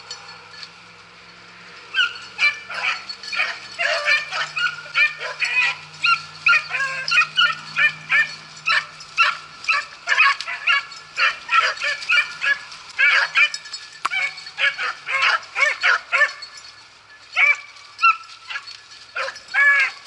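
A pack of beagles baying on a rabbit's scent trail: many overlapping, repeated yelps and bays starting about two seconds in, a short lull near the end, then the baying picks up again.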